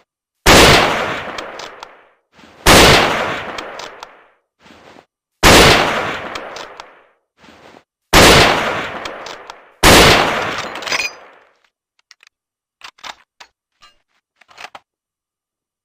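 Five shots from an M39 Mosin-Nagant bolt-action rifle in 7.62×54mmR, spaced about two to three seconds apart, each ending in a ringing tail about a second and a half long. Small mechanical clicks sit between the shots, and a scattered run of light clicks and clacks comes near the end.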